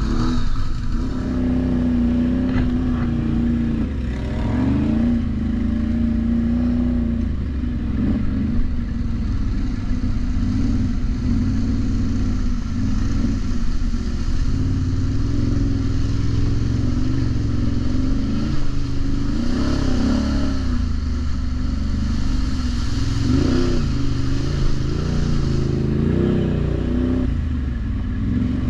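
ATV engine running under way, its pitch rising and falling again and again as the throttle is worked.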